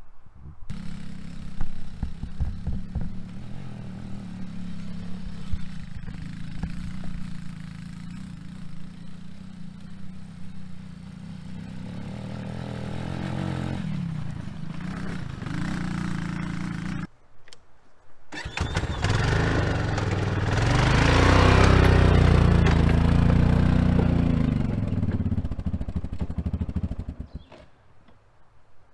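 Four-wheeler (ATV) engines running over rough tilled ground. A small ATV runs steadily with irregular knocks and revs for the first part; after a short break about 17 seconds in, a louder engine runs and then drops away shortly before the end.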